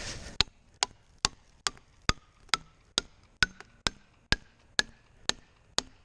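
Plastic felling wedges being pounded into a tree's back cut: a steady run of sharp blows, about two a second, each with a short ring, driving the wedges in to help tip the tree.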